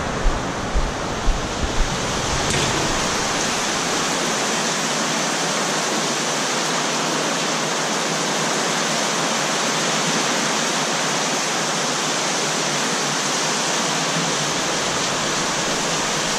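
Heavy typhoon rain pouring down in a steady, even hiss, with a few soft low knocks in the first couple of seconds.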